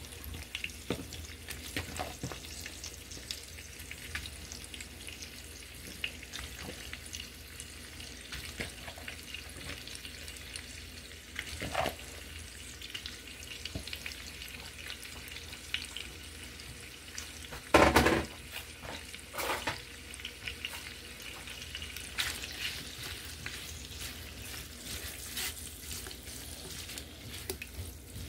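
Sliced andouille sausage sizzling and crackling in hot bacon grease in a skillet, with a single loud knock about two-thirds of the way through. Near the end a spatula stirs the slices and the crackling grows busier.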